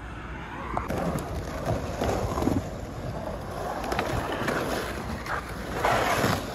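Skateboard wheels rolling on concrete with wind buffeting the phone microphone, marked by a few sharp clicks and knocks; the rolling gets louder near the end.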